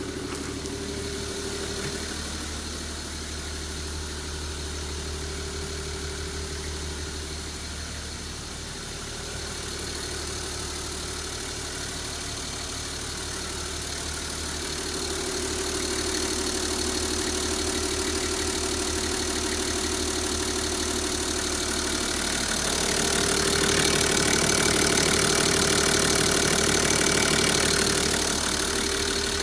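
Nissan TD42 4.2-litre straight-six diesel in a Civilian bus idling steadily. It grows louder in the second half and is loudest near the end, where it is heard close up through the open engine cover.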